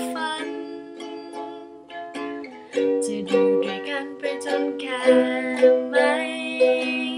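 A ukulele is strummed through a chord progression, each strum sharp and the chords ringing on between strums.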